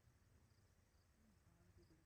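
Near silence: faint low hum of room tone.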